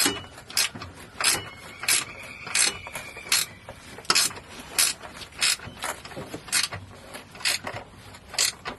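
Hand ratchet tightening a bolt on a driveshaft safety loop, with a short burst of pawl clicks on each back-swing, about every 0.6 seconds. A faint thin squeak sounds briefly in the first few seconds.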